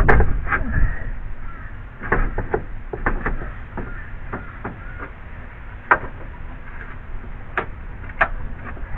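Irregular knocks and clunks as a radiator is worked down and seated in the radiator support of a 1987 Ford Crown Victoria.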